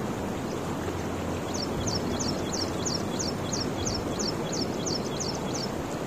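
Steady rush of water flowing through a concrete irrigation canal, with a bird giving a rapid series of high chirps, about three a second, that pause briefly and resume about a second and a half in.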